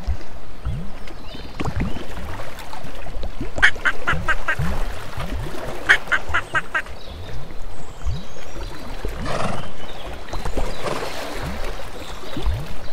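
Ducks quacking in quick runs of several calls, about four and six seconds in, over a repeating low, short falling sound about twice a second.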